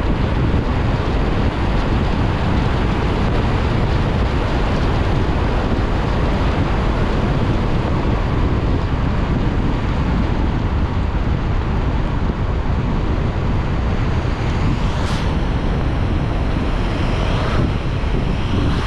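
Car driving on wet roads in the rain: a steady low rumble and the hiss of tyres on water, with wind noise. A brief rising swish comes about fifteen seconds in.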